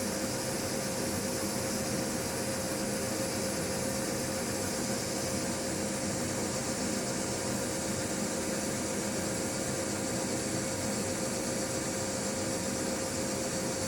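John Deere combine running steadily: a constant machine drone with a steady whine held at one pitch.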